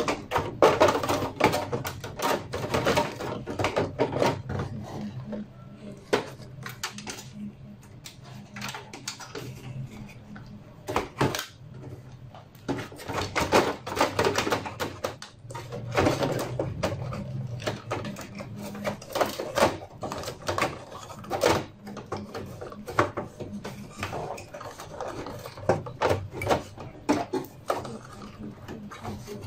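Irregular clicks, taps and knocks of a Dell desktop motherboard being handled and seated into a metal computer case, board and parts clattering against the chassis, over a low steady hum.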